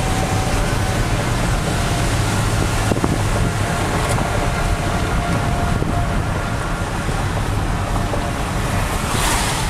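Steady road and engine noise of a car driving, with wind rushing past the vehicle and a low hum, and a brief swell of hiss near the end.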